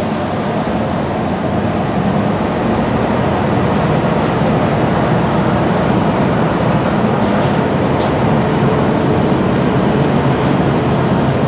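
Cabin noise on board a moving Mercedes-Benz O405 single-deck bus: the rear-mounted diesel engine's steady drone mixed with road noise, with a few faint rattles.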